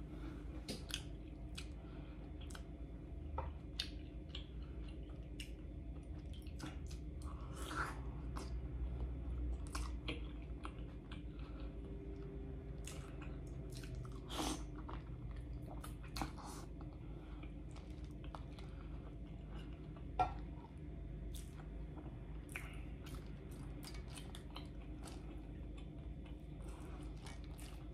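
Close-miked eating of boiled crawfish: chewing and mouth smacks, with scattered small clicks and crunches, over a low steady hum.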